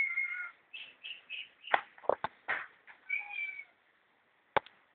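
Domestic cat meowing: a drawn-out meow at the start, a few short chirping calls, and another meow about three seconds in. Several sharp knocks and clicks fall in between, and one more comes near the end.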